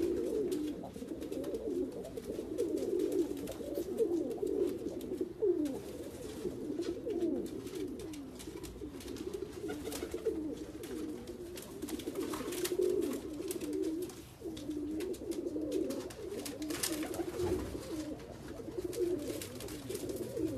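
Several Persian pigeons cooing, their low calls overlapping without a break.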